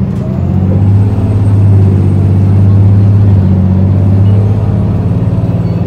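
Isuzu Erga city bus (QKG-LV234L3) under way, heard from inside the passenger cabin: its 4HK1 four-cylinder turbo-diesel gives a loud, steady low drone. The drone swells over the first second or two as the bus pulls along and eases slightly near the end.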